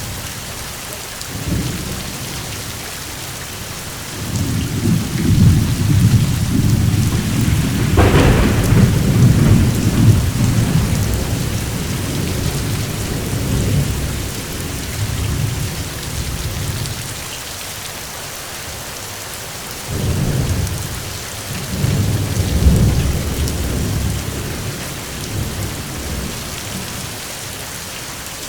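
Steady rain falling, with long low thunder rumbles. About four seconds in a rumble builds and rolls on for roughly ten seconds, with a sharper crack in its middle; about twenty seconds in two shorter rumbles follow.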